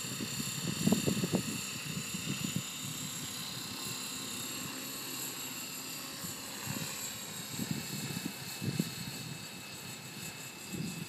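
Radio-controlled model helicopter flying overhead: a steady high-pitched whine from its motor and rotors, the pitch shifting slightly about six seconds in. Irregular low rumbles of wind on the microphone come and go.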